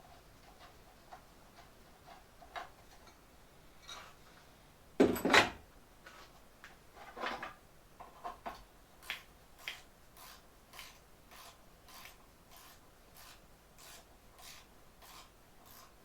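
Metal tools being handled while a band saw is taken apart: a sharp double clunk about five seconds in and a short rattle after it. Then comes an even run of light clicks, a little under two a second, such as a ratchet spanner working a bolt.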